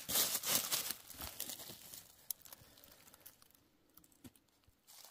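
Dry fallen beech leaves rustling and crackling as a hand sweeps through them. Dense for about the first second, then a few scattered crinkles that thin out.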